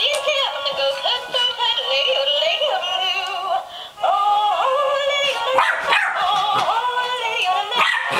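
Battery-powered singing plush sheep toy playing a tinny, thin-sounding song through its small speaker, pausing briefly about four seconds in. A Labrador puppy barks and yips at it in the second half.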